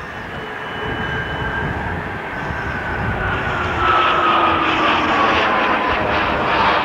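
F-15 Eagle jet engines running loud, with a whine that slowly falls in pitch while the overall noise swells about four seconds in. The jet is on the foamed runway in an emergency landing with its left main gear collapsed.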